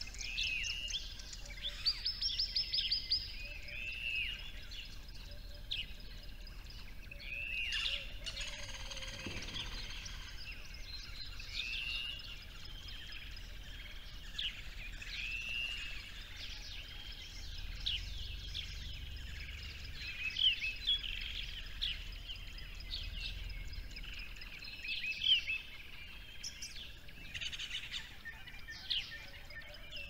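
Several small birds chirping and singing together, with short arched chirps repeating every couple of seconds and quick trills mixed in.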